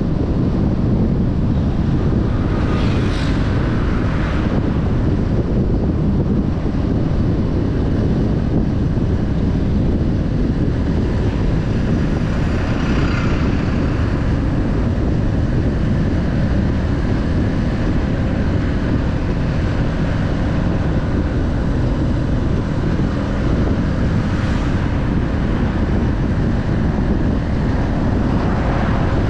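Car driving on the road: a steady low rumble of engine and tyre noise, with a few brief swells of higher noise.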